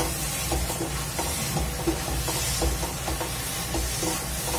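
Spatula stirring and scraping a thick mash of cooked pumpkin in a non-stick kadhai, in repeated strokes about twice a second, over a steady sizzle as the last of the liquid cooks off.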